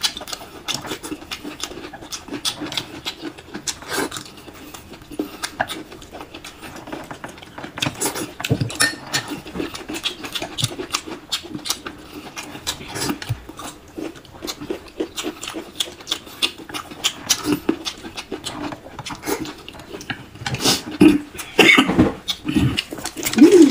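A person eating dumplings noisily: wet chewing, slurping and lip-smacking with many small clicks, growing louder near the end.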